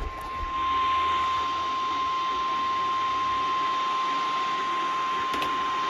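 NOAA Weather Radio warning alarm tone: a single steady 1050 Hz beep held throughout over radio hiss, the alert signal that comes before a warning broadcast. A faint click sounds near the end.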